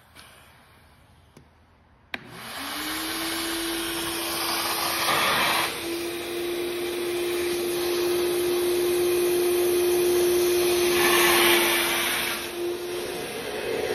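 Vacuum switched on with a click about two seconds in, then running with a steady motor whine and rushing air. Its hose is on the inflatable rescue boat's tube valve, sucking the air out to deflate the tube.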